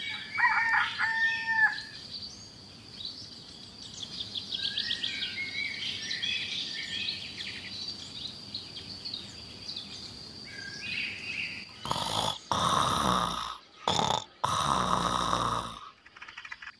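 Birds chirping and twittering over a steady high tone. About twelve seconds in come several loud, noisy snoring breaths.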